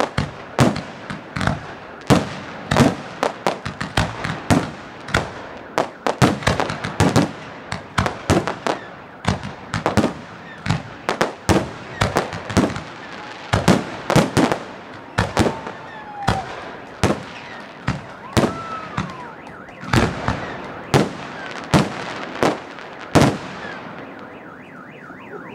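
Fireworks display: a rapid volley of sharp bangs, several a second, that thins out and stops near the end.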